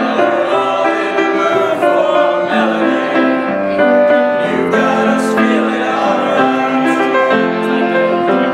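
A man singing a Christmas song, accompanied on grand piano.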